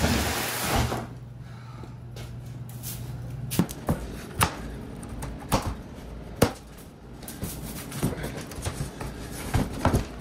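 Cardboard box being handled and opened, its wire strapping cut with side cutters: a rustling sweep at the start, then a scatter of sharp clicks and knocks, over a low steady hum.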